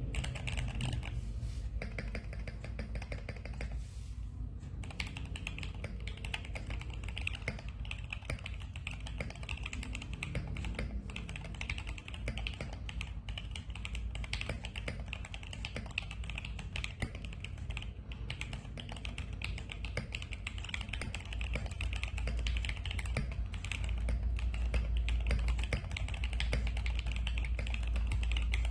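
Continuous typing on a custom 40% HHKB-layout mechanical keyboard with SP-Star Polaris switches: a quick, irregular stream of key clicks, with a brief pause about four seconds in.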